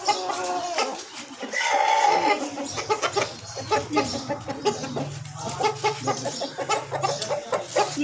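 Black Aseel chickens clucking and calling in short repeated calls, with one louder, drawn-out call about two seconds in.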